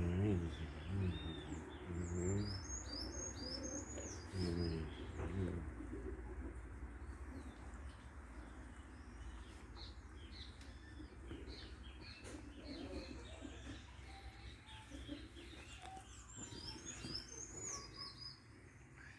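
Small birds chirping and twittering in quick, high, repeated calls, with low cooing calls during the first five seconds or so.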